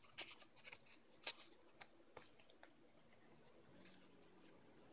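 Faint handling noise: a few light clicks and paper-and-plastic rustles as a tempered-glass screen protector in its paper sleeve is moved and set down, fading to near silence in the second half.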